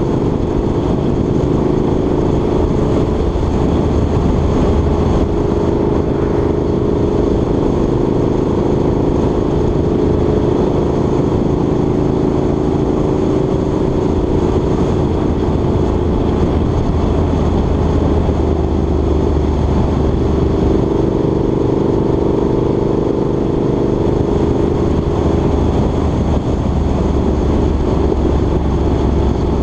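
Vehicle engine running steadily at road speed, with road and wind noise on the microphone; the engine note sags briefly a little past halfway and then picks up again.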